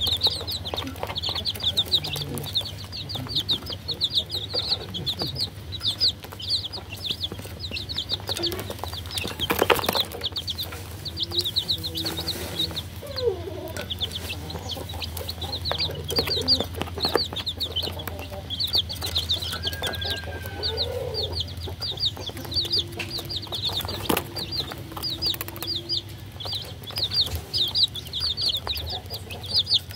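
A brood of baby chicks peeping constantly, many short high chirps a second, with a few lower clucking calls among them. A steady low hum runs underneath.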